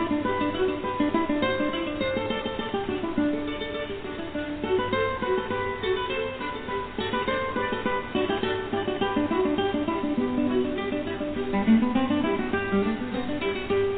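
Background music: fast, continuous plucked acoustic guitar.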